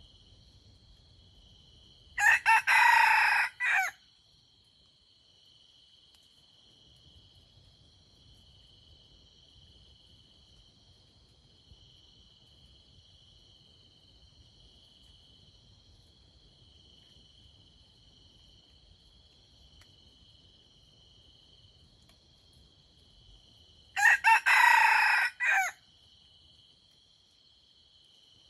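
A red junglefowl rooster crowing twice, about twenty seconds apart: each a short, broken crow lasting under two seconds, the first about two seconds in and the second near the end. A steady, high insect chirring runs underneath.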